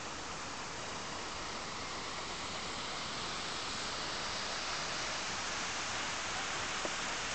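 Steady rushing of falling water, a waterfall's even roar, getting a little louder in the second half.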